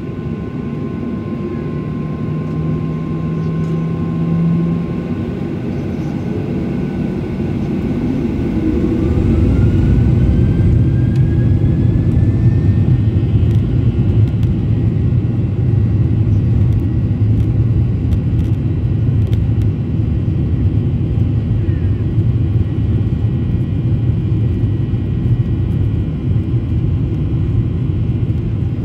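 Boeing 737-800's CFM56-7B jet engines heard from inside the cabin, spooling up to takeoff thrust about nine seconds in with a rising whine, then a steady loud rumble as the plane accelerates down the runway.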